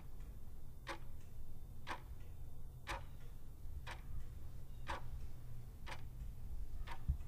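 Faint regular ticking, one tick about every second, like a clock's second hand, over a low steady hum.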